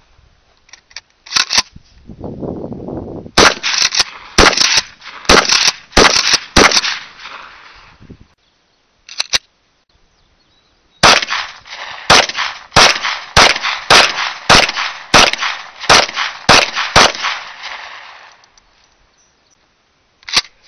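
Gunshots from a Winchester 1200 pump-action shotgun and a Taurus 24/7 9mm pistol: a few single shots, then a quick string of about seven shots, then a longer string of about ten shots, roughly two a second. Each shot is a sharp crack with a short echo.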